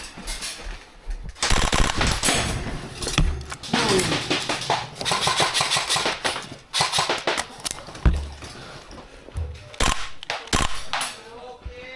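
Airsoft guns firing in rapid full-auto bursts: several seconds of near-continuous fire, then shorter bursts.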